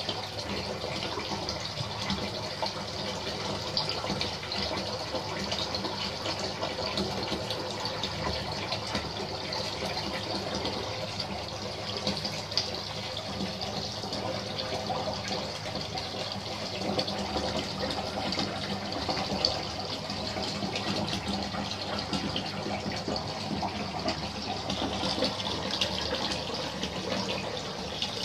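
Bath bomb fizzing in bathwater: a steady crackling hiss of bursting bubbles.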